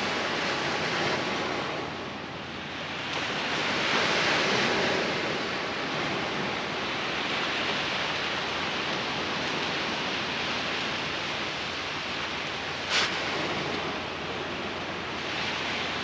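Surf washing onto a beach: a steady rush of breaking waves that swells about four seconds in, with a single short click about three-quarters of the way through.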